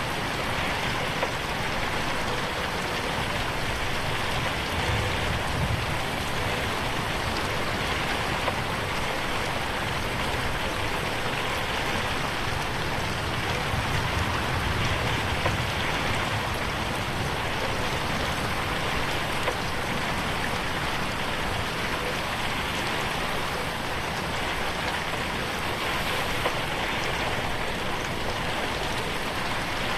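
Steady rain hitting a window, a dense even patter with a few louder single drop ticks now and then.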